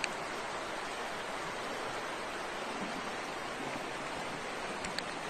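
Steady rush of a river flowing over stones, with a short click near the end.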